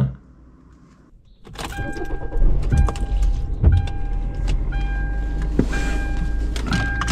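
Inside a vehicle: the engine rumbles low and steady, with a few clicks and knocks, under a repeating electronic warning chime that sounds in short on-off stretches.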